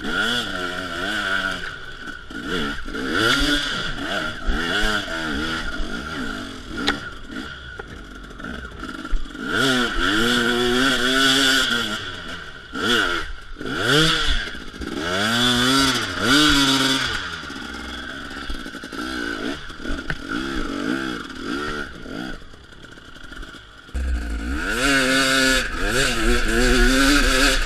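250 cc two-stroke enduro motorcycle engine revving up and down over and over, its pitch climbing and dropping with the throttle as the bike is ridden. A low rumble joins in near the end.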